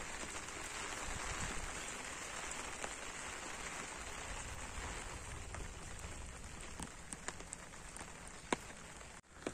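Light rain falling steadily, a soft even hiss with a few sharp ticks of drops.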